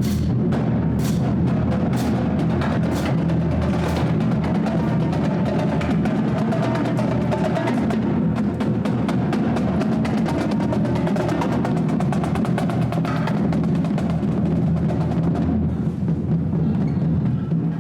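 Live percussion music: rapid, continuous drum strokes over steady low sustained notes.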